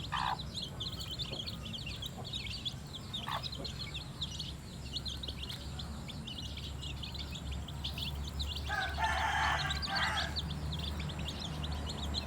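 A flock of small chicks peeping continuously, a rapid chorus of short high chirps, over a steady low hum. About nine seconds in, a louder, coarser sound joins for about a second and a half.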